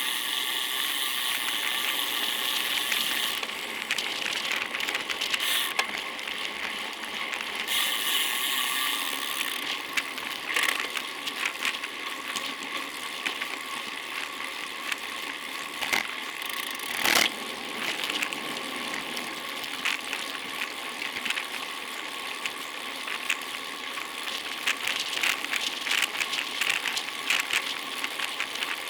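Bicycle on the move: steady tyre and road hiss with the fast clicking of a freewheel hub, and a single sharp knock about halfway through.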